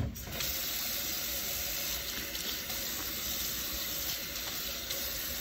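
Faucet water running steadily into a stainless steel sink and splashing over a paper towel held under the stream. A single sharp knock comes right at the start.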